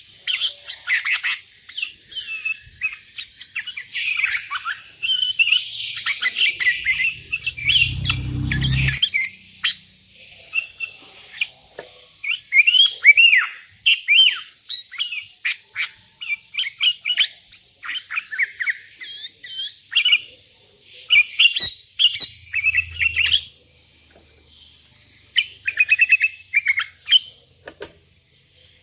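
Sooty-headed bulbul singing in a busy, almost unbroken run of short chirps and whistled phrases. A brief low rumble comes about eight seconds in.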